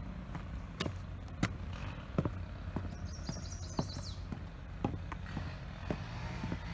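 Footsteps knocking on wooden steps as a hiker walks down them, roughly one step every two-thirds of a second. Under them runs the steady hum of a lawn mower cutting grass in the background, and a bird sings a short run of high notes about three seconds in.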